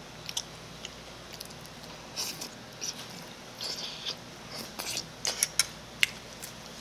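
Close-miked eating sounds: chewing mouthfuls of mala tteokbokki with wide glass noodles. Short wet bursts are interspersed with several sharp clicks, the loudest about six seconds in.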